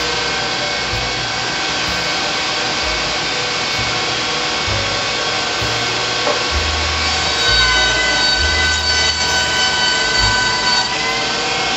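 Delta Unisaw table saw running with a steady whine while a board is ripped, fed through by a homemade stock feeder driven by a DeWalt hand drill. The whine sags about seven seconds in as the blade takes the cut and rises again near the end.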